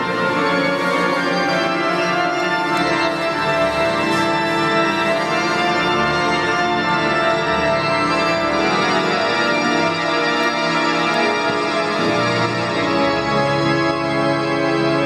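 Church pipe organ playing full, sustained chords that change every second or two, with lower bass notes joining in the second half.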